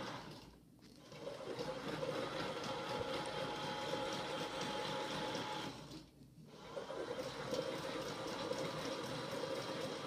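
Toy Miele washing machine running, a steady small-motor whir with a watery hiss. It drops out briefly about a second in and again a little after six seconds, then starts up again.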